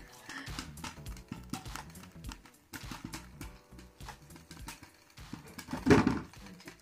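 Popcorn kernels popping irregularly in a covered electric skillet with a glass lid, the pan already full of popped corn so only scattered pops remain. A louder clatter comes about six seconds in.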